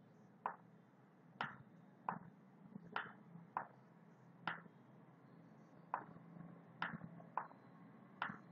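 Faint, sharp computer-mouse clicks, about eleven at an uneven pace, as strokes are drawn with a screen pen tool, over a faint steady low hum.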